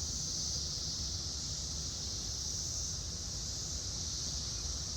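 Steady high-pitched chorus of crickets or other insects over a low, even rumble.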